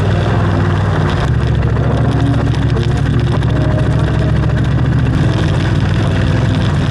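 Ducati Desert X Rally's 937 cc L-twin engine running steadily while the motorcycle is ridden, with a few faint ticks.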